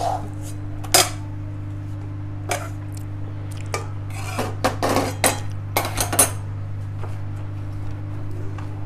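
Metal spoon scraping and clinking against a metal kadhai and other utensils, in scattered knocks and then a quick flurry of scrapes and clinks about four to six seconds in, over a steady low hum.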